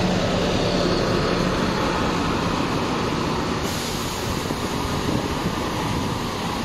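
Scania K230UB city bus pulling away and driving off, its five-cylinder diesel engine and loud ZF automatic gearbox whine fading as it moves away. A steady low hum dies out after about two seconds.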